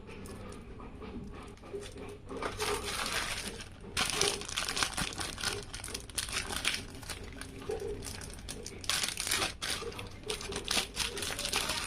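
Crinkling and rustling of packaging being handled, coming in irregular spells of many small crackles, loudest a few seconds in and again near the end.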